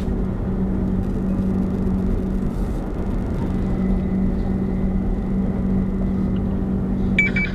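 Steady engine drone and road rumble inside a car's cabin while driving. A short high beep comes near the end.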